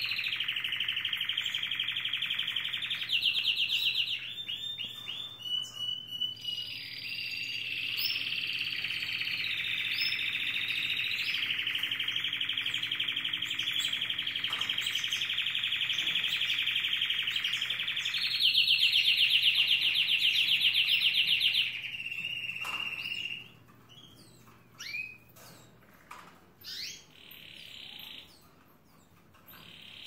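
Male harlequin canary in breeding condition singing his courtship song to a female: a long unbroken run of rolling trills and warbled phrases. It breaks off about three quarters of the way through, leaving only scattered short notes.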